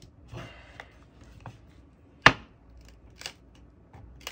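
Plastic pry tool scraping and clicking along the edge of a cracked phone screen as it is prised off the frame, with one sharp snap about two seconds in.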